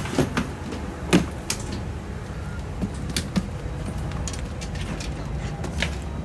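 Steady low hum inside a parked airliner's cabin during boarding, with a few sharp knocks and clicks from bags and passengers moving through the door, the loudest about a second in.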